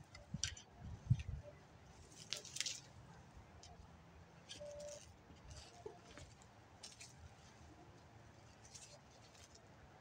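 Shovel working loose garden soil: a couple of dull thumps early on, then scattered short scraping crunches of the blade in the dirt.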